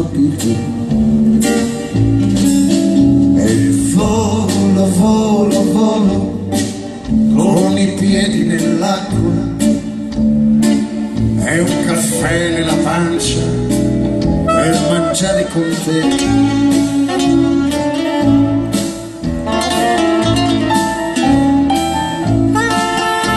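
Live band playing a song: a man singing over acoustic guitar, double bass, keyboards and drums, heard from the audience.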